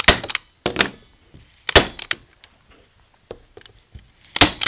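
Handheld staple gun firing staples through fabric strips into the back of a canvas frame: four sharp snaps, three within the first two seconds and one near the end, with faint handling ticks between them.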